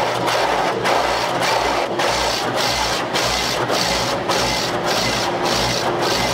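Automatic car wash working over the car, heard from inside the cabin: a rushing wash noise that pulses in a steady rhythm, almost twice a second.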